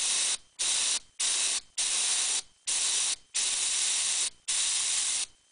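Compressed air from an air hose nozzle hissing in a series of about seven blasts, some brief and some longer, blown into the vacuum inlet of an antique Paul Garnier spinning-top attitude indicator to spin its rotor up.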